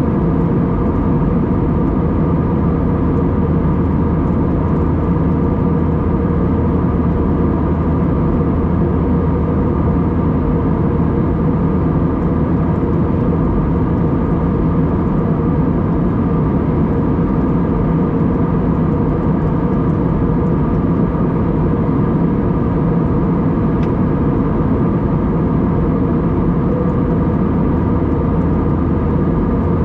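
Steady cabin noise inside an Airbus A320-232 in flight: the even rush of air and the hum of its IAE V2500 turbofans, with several steady tones and no change in pitch or loudness.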